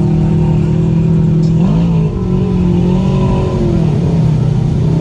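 Side-by-side UTV engine running steadily, its pitch shifting up and down twice as the throttle changes, about two seconds in and again near four seconds.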